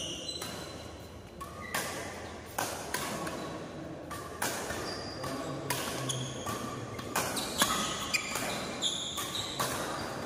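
Badminton rally: racket strings hitting a shuttlecock about once a second, each hit echoing in a large hall, with short squeaks from shoes on the court mat between the hits.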